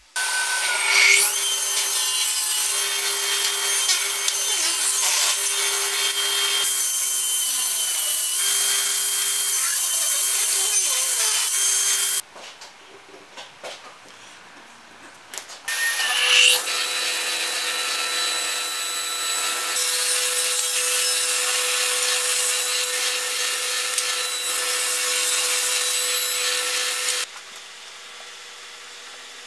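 An electric woodworking power tool spinning up and running while working wood, in two long runs of about twelve and eleven seconds with a short quiet break between them. A quieter steady hum is left near the end.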